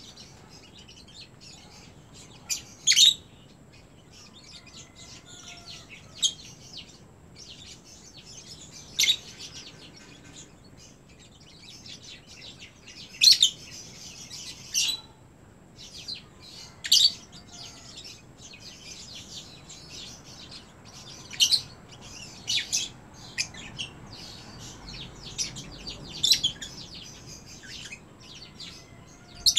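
Lovebirds chirping: short, sharp, high-pitched calls every few seconds over steady soft twittering and small clicks.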